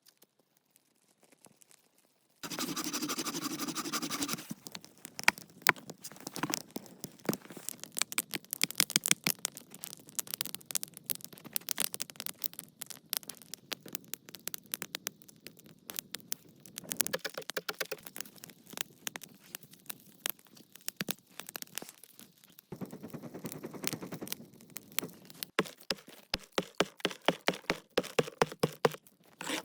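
Irregular sharp crackles and scraping, coming in several stretches with sudden changes between them.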